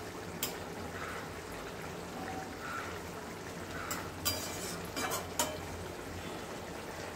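Fish curry gravy bubbling at a boil in a metal kadai, a steady hiss. A plastic spatula stirs it, with a few sharp knocks and scrapes against the pan, mostly in the second half.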